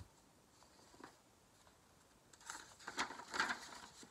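Paper pages of a large picture book being turned and flipped, a crackly paper rustle starting about two seconds in.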